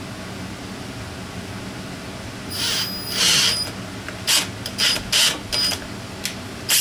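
Electric drill boring out a bolt hole in an aluminium intake manifold for a thread insert: one run of about a second with a steady motor whine, then five or six quick trigger pulses as the bit cuts down into the hole.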